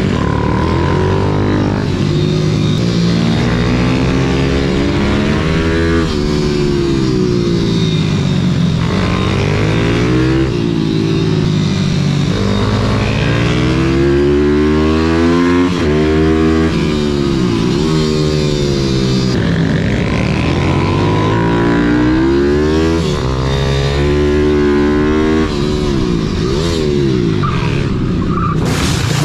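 YCF SM 190 Daytona pit bike's single-cylinder four-stroke engine heard from on board, revving up and dropping back over and over, its pitch climbing and falling about every two seconds through gear changes and corners. A brief sharp noise near the end.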